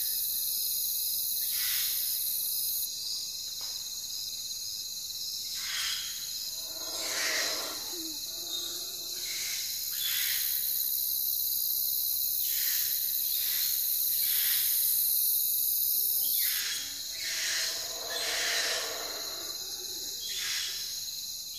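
Chorus of crickets and other insects: a steady high-pitched trill, with shorter calls repeating every second or two and a lower-pitched call twice, about seven and seventeen seconds in.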